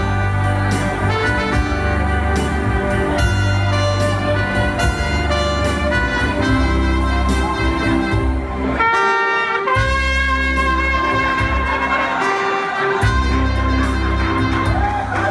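Live jazz band playing: two trumpets lead over a saxophone and keyboard with a steady bass line. The bass drops out briefly about nine seconds in and again a few seconds later.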